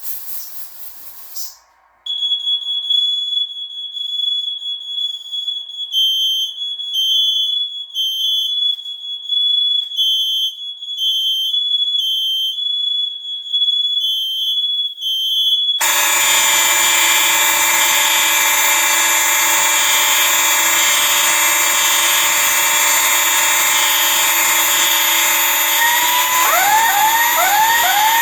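Smoke alarms going off: a steady high beep starts about two seconds in, and from about six seconds more alarms beep in a repeating pattern over it. At about sixteen seconds a whole set of fire alarm horns and sounders comes on at once in a loud, dense mix of tones. Near the end a rising whoop tone repeats about twice a second.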